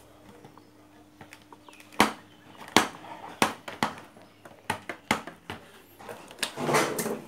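Sharp clicks and knocks, about half a dozen over several seconds, from hands handling the chassis, circuit boards and wiring of an opened CRT TV. A longer, louder rustle comes near the end as a hand sweeps over the chassis.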